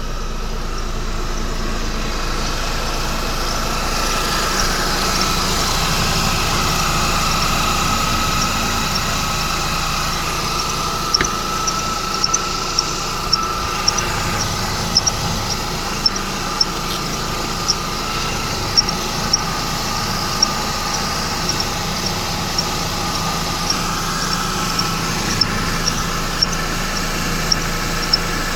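Mercedes-Benz M272 V6 engine running, with a short high-pitched chirp from the accessory belt area that starts repeating about a third of the way in, roughly once or twice a second. The owner suspects the belt tensioner, which moves in sync with the squeak.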